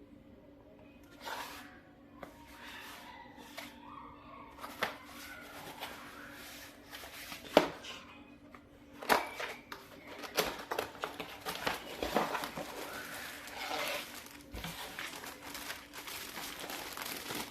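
Packaging being opened and handled while unboxing a keyboard: crinkling, rustling and tearing with many sharp clicks and knocks. The sounds are sparse at first and busier in the second half, and the loudest is a single sharp knock about halfway through.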